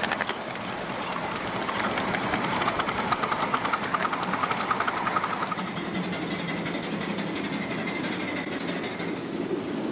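Miniature live-steam locomotive running along its track, with rapid clicking from the wheels and motion. About halfway through the sound becomes steadier and duller.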